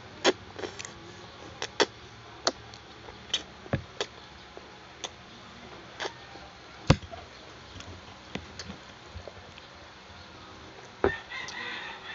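Close-up eating sounds of children slurping and chewing spaghetti: a string of sharp, irregular mouth clicks, smacks and fork taps. Near the end a pitched, bending call begins.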